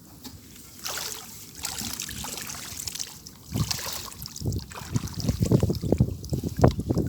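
Water splashing and sloshing: a hissing splash about a second in, then a run of low, heavy, irregular sloshes through the second half.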